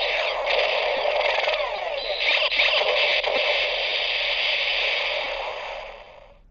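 Electronic sound effect from a Bandai Kamen Rider Decade K-Touch 21 toy's small speaker: a dense, static-like rush with sliding tones through it, fading out near the end.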